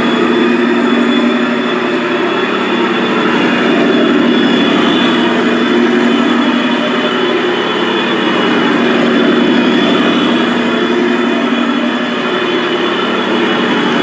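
Radio-controlled Leopard 2A6 model tank driving on a wooden floor, its drive running with a steady, even mechanical drone.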